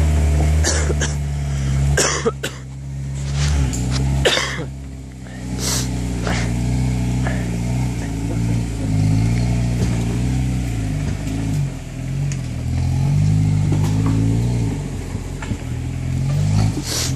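Jeep Wrangler engine pulling at low revs that rise and fall as it tows a non-starting truck over rough trail. Sharp knocks and rattles from the towed truck jolting over bumps come several times in the first six seconds.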